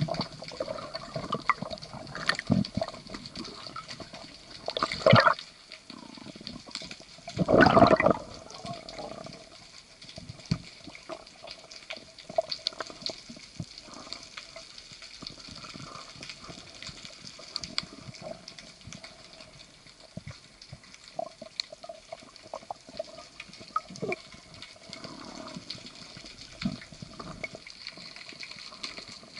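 Underwater ambience picked up by a diver's camera: a faint, constant crackle of small clicks and ticks, with two louder whooshing bursts of noise about five and eight seconds in.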